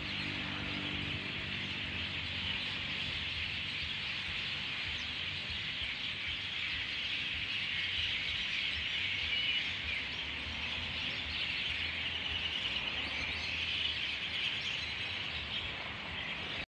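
Night insects, such as crickets, chirping in a steady, dense high chorus.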